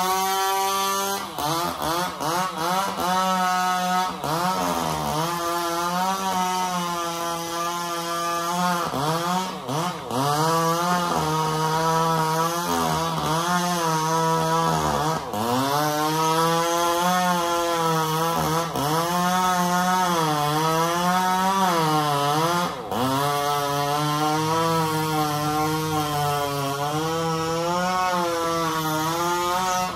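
Two-stroke chainsaw cutting into trembesi (rain tree) wood. The engine pitch sags as the chain bites under load and climbs back, several times over.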